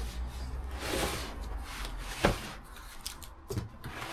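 Cardboard box being opened by hand: packaging rubbing and rustling, with a sharp knock a little over two seconds in and a few light clicks near the end.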